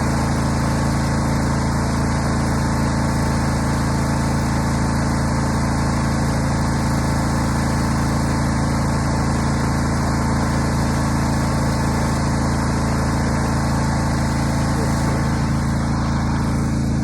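An engine running steadily at constant speed, with an even hum throughout.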